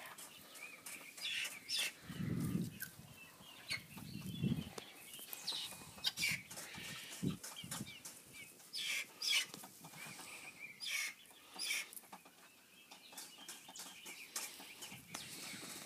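A hen clucking now and then as it forages, with irregular rustling and scratching as it moves through weeds and grass. There are two low rumbles in the first few seconds.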